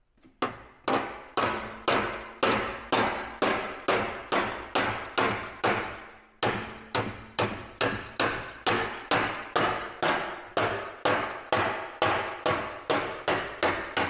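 Hammer tapping along a bend in a thin steel plate clamped over square steel tube, a little over two strikes a second, each with a short metallic ring. The sheet steel is being shaped into a gradual bend. There is a brief break about six seconds in before the tapping resumes.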